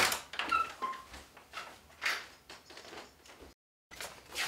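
Footsteps and door handling as someone goes to answer the front door: scattered knocks and clicks, with a couple of short squeaks about half a second in. The sound drops out entirely for a moment near the end.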